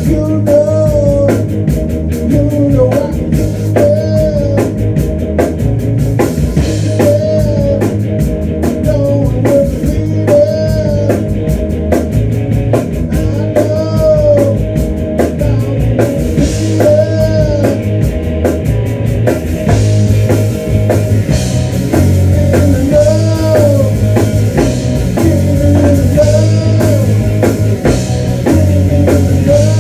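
Rock band playing live and loud, with a drum kit keeping a steady beat under electric guitars and bass. A short rising-and-falling riff repeats about every second and a half.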